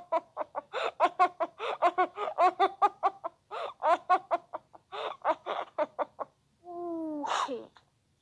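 A person laughing hard and on and on, in quick repeated 'ha-ha' pulses, about five or six a second. About seven seconds in, a longer sound falling in pitch ends it.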